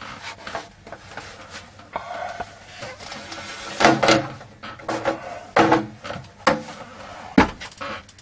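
Plastic case of a Macintosh 12" RGB monitor being worked off by hand: irregular clicks, knocks and scrapes of plastic, with a few sharper knocks in the second half.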